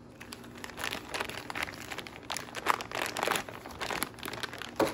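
Packaging crinkling and rustling in irregular spurts as a toy baby bottle is handled and unwrapped, with a sharper rustle near the end.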